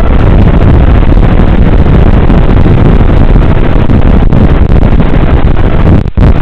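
Loud wind rush over the onboard camera microphone of a Mini Arrow flying wing in flight, with no motor whine audible. There is a brief dropout about six seconds in.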